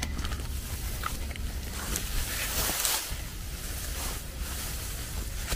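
Footsteps and rustling in grass and dry leaf litter over a steady low rumble on the microphone, with the rustle loudest a little past halfway.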